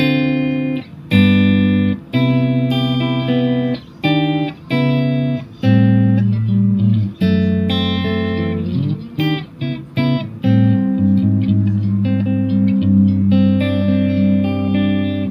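Electric guitar played through the Lekato Tank G Black's Fender '65 Twin Reverb preamp model into a Boss Katana amp: a run of chords and short note phrases, with a pitch slide about halfway through.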